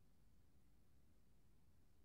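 Near silence: only a faint, even low hiss with no distinct sounds.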